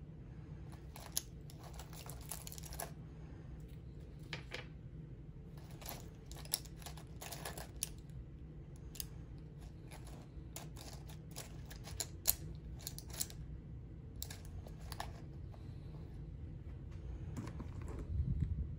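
Small items in a zippered cosmetic pouch clicking and rustling as a hand rummages through it: irregular light clicks and taps over a low steady hum, with a louder rustle near the end.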